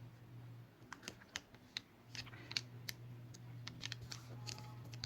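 Light, irregular clicks and taps of small repair tools against the opened phone's parts, over a steady low hum.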